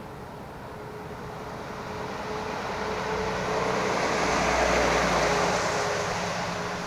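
A truck driving past, its engine and tyre noise building up, loudest about five seconds in, then fading away.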